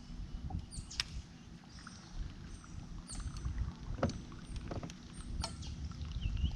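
Boat sitting on the lake with a steady low rumble of wind and water. A few sharp knocks fall about one, four and five and a half seconds in, and faint short high chirps come and go.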